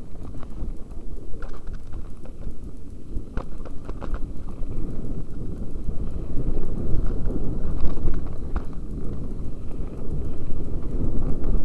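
Wind buffeting a helmet-mounted camera's microphone during a fast mountain-bike descent, a continuous low rumble, with tyres on loose dirt and gravel and scattered clatters as the bike and camera mount jolt over rocks.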